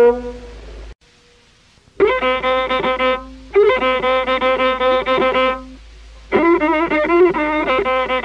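Masenqo, the Ethiopian single-string bowed fiddle, playing an instrumental melody with a wavering, nasal tone over a steady lower note. A held note fades out at the start, there is a second of near silence, then the bowing resumes in three phrases with short dips between them.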